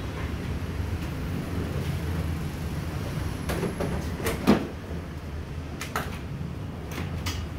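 Plastic buckets of honey being lifted down and set on a stack: a handful of sharp knocks in the second half, the loudest about halfway through, over a steady low rumble.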